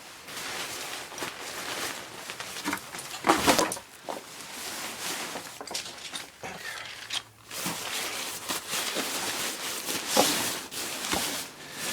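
Litefighter 1 shelter fabric rustling and crinkling as it is handled and folded, in irregular bursts with a louder bump about three seconds in.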